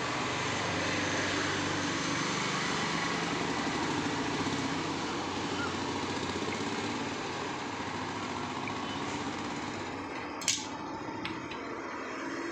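Steady street traffic noise with a low engine hum, and a single sharp knock near the end, with a fainter one just after.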